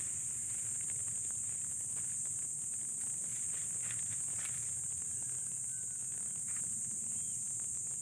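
Steady, high-pitched chorus of insects buzzing without a break.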